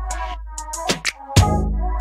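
Background music with a regular drum beat and a steady deep bass.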